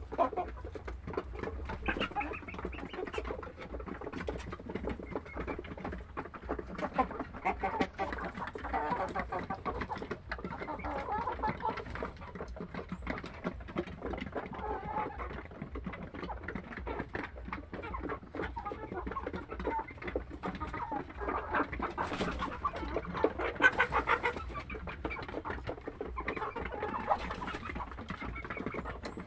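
A flock of four-month-old pullets, close to point of lay, clucking and calling, with many small clicks and taps mixed in; the calling gets louder for a couple of seconds around two-thirds of the way through.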